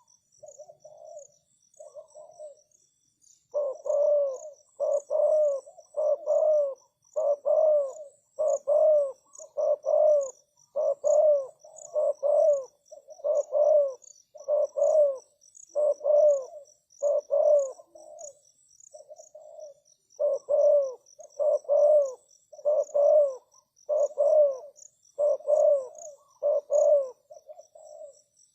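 Spotted dove cooing, a long series of deep, repeated coos with a short pause a little past the middle.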